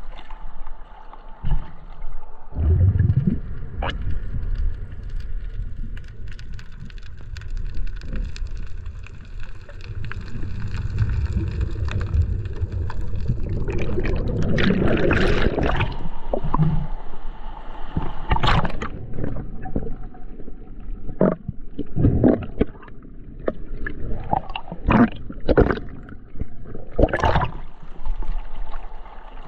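Water sloshing and gurgling close around a camera at the sea surface as it dips under and comes back up, with bubbling underwater. Several short splashes come in the second half.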